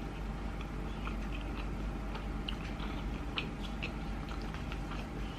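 A person chewing sushi, with many small, irregular wet mouth clicks.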